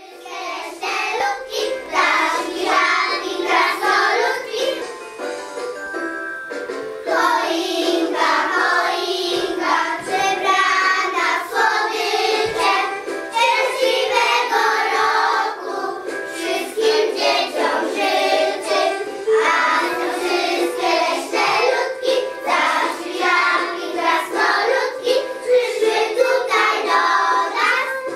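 A group of young children singing a song together in unison, with a short break about six seconds in before the singing picks up again.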